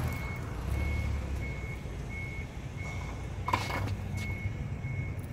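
A vehicle's reversing alarm beeping steadily, about once every three-quarters of a second, over a low engine rumble. A single sharp clank about three and a half seconds in.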